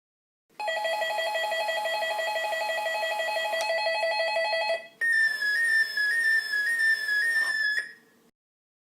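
Synthesized laser gun sound effect: a rapidly warbling electronic tone for about four seconds, then a string of short falling zaps, about three a second, which stop about a second before the end.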